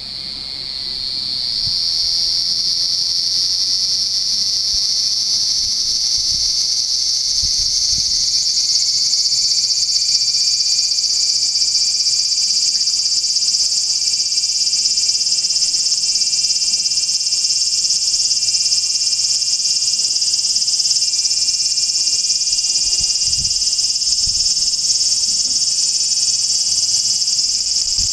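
A cicada singing close by: a loud, high, continuous buzz that swells over the first two seconds and then holds steady.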